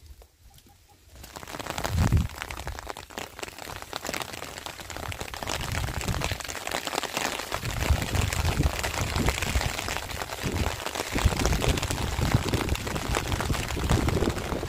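Rain falling steadily with gusts of wind buffeting the microphone, building up after about a second of near quiet.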